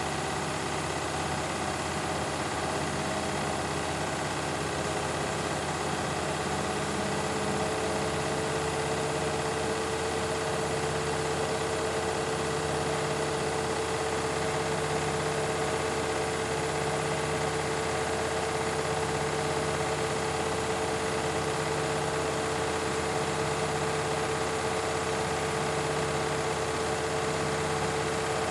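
Beko and Candy washing machines running in their spin cycles: a steady motor and drum whine whose pitch creeps up slightly over the first several seconds, then holds, with a low hum that swells and fades every couple of seconds.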